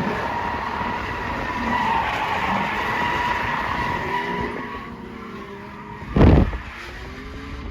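Cadillac CTS-V's LS2 V8 drifting with its tires sliding and squealing in a steady high tone. It eases off after about four seconds to a quieter engine note that rises and falls, broken by a brief loud burst about six seconds in.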